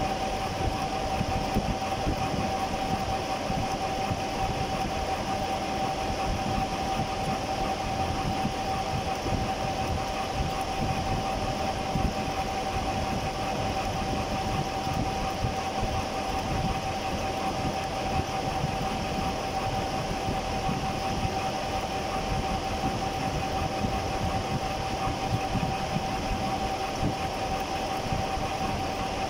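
Conventional milling machine face-milling a metal block at a slow feed rate. The spindle and face mill cutter run with a steady high tone over the continuous rough noise of the cut.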